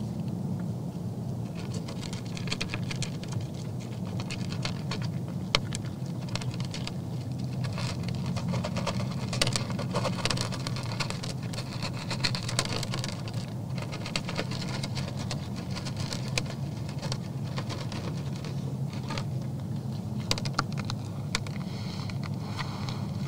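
Whitetail bucks eating feed from a feeder tub close to the microphone: a dense, irregular run of crunching and crackling clicks over a steady low hum.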